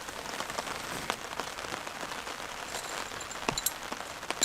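Steady rain falling, with many individual drops ticking on nearby surfaces. A few sharper clicks come about three and a half seconds in.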